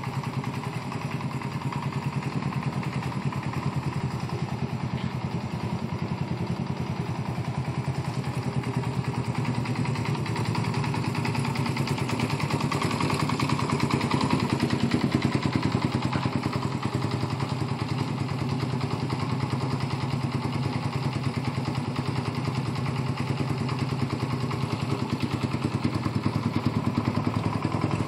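A 1984 Honda XL125S's single-cylinder four-stroke engine idling steadily with an even pulse, running a little louder for a few seconds about halfway through.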